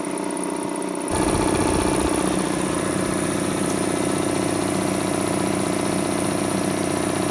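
ABAC B2800 two-cylinder, belt-driven piston air compressor running steadily after a rebuild with new gaskets and piston rings. About a second in it becomes louder and fuller, then keeps an even running note.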